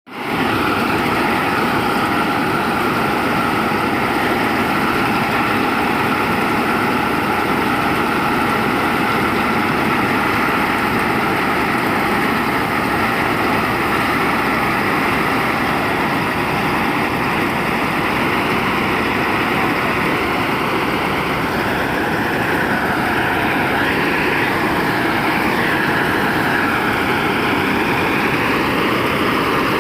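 Kuldeep combine harvester running: a loud, steady engine and machinery drone with a constant whine. Near the end the pitch of the whine wavers up and down.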